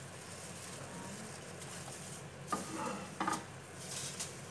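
A spatula scooping sautéed onions and peppers out of a frying pan, scraping and knocking against the pan a couple of times past the middle, over a steady hiss.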